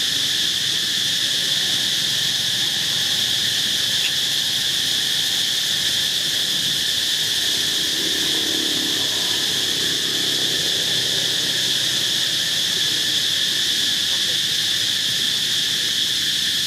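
Steady, high-pitched insect chorus: a continuous drone that does not break.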